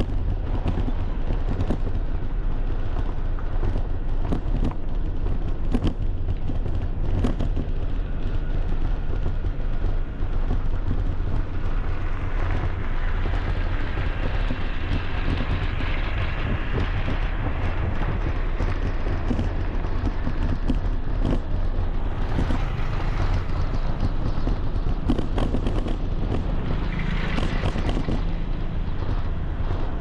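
Steady street traffic with wind buffeting the microphone, a continuous low rumble throughout.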